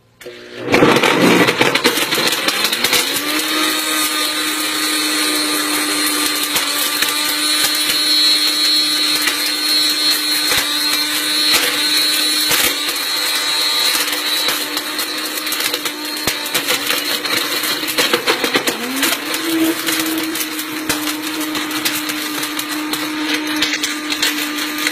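Blendtec blender starting up about half a second in, its motor rising in pitch to a steady run while pieces of a smartphone rattle and grind against the jar. The motor steps up slightly in pitch later on; the blender is struggling to break the phone down.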